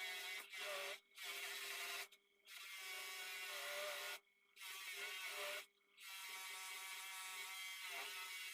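Motor of a workshop power tool running, its pitch wavering a little, in short stretches that cut off abruptly every second or two.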